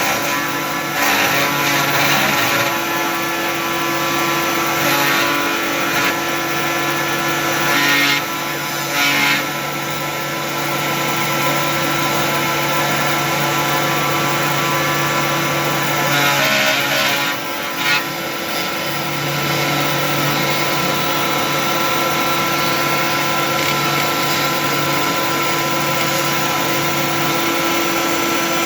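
Homemade cyclone vacuum running steadily alongside a CNC 3018 router. Some of the machine's steady tones cut out and return several times.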